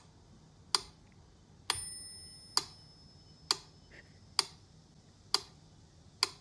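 Mechanical pendulum metronome ticking at an even, slow beat, a little faster than once a second. On the beat about two seconds in, its bell rings and fades away.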